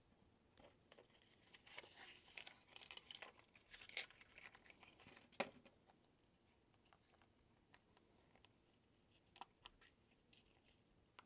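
Faint clicks and rustling from handling small electronic parts as stepper driver modules are fitted onto the main board's header pins, with two sharper clicks in the middle.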